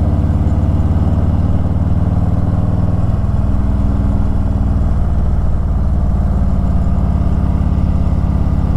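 Harley-Davidson Ultra Limited V-twin engine running steadily under way, with wind noise over the microphone. The engine note shifts slightly about three seconds in.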